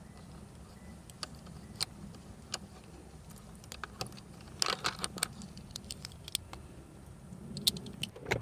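Irregular small metallic clicks and clinks from a ratchet with a 10mm socket and loose screws being worked, with a quick cluster of clicks about halfway through and another near the end.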